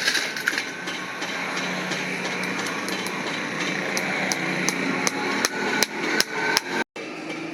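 Farrier's hammer tapping in quick light strikes, about three a second, over a steady background hiss. The sound drops out for a moment near the end.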